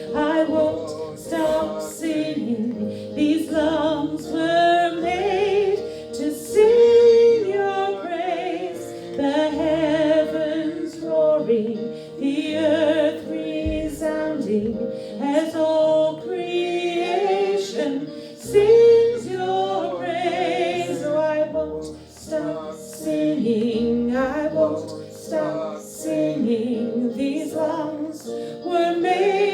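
Worship song: a female voice singing a slow melody with vibrato, over instrumental accompaniment holding steady chords.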